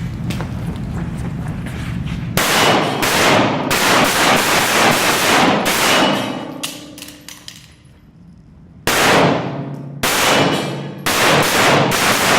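Pistol shots fired in rapid strings, starting about two seconds in, with steel targets clanging and ringing after the hits. There is a lull of about two seconds, then a second run of shots near the end.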